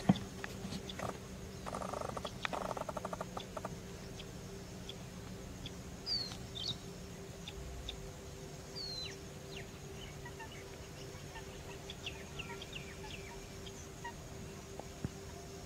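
Marsh ambience with birds calling: a quick rattling call about two seconds in, then scattered short, falling chirps. A steady faint hum sits underneath.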